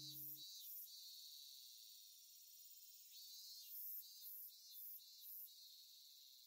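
Faint summer cicadas chirring, pulsing in short rhythmic beats near the start and again in the middle, with a steadier high buzz in between. A low held music chord cuts off about half a second in.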